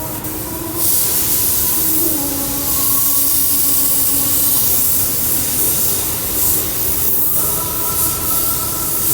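Hot-air plastic welding gun blowing, a loud steady hiss of rushing air that starts about a second in.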